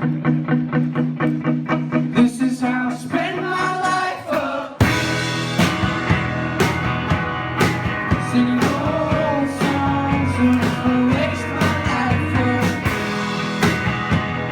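Rock music: a guitar picking a steady run of repeated notes, then drums and the full band come in suddenly about five seconds in, with singing over it.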